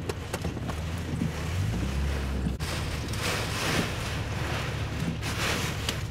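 Hurricane eyewall wind and driven rain beating against a vehicle, with scattered sharp ticks of impacts over a low rumble. About two and a half seconds in, it shifts abruptly to a louder, hissing rush that swells twice.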